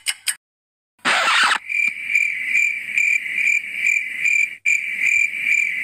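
A short whoosh about a second in, then a cricket-chirping sound effect: a steady high chirp pulsing about two to three times a second, with a brief break near the end.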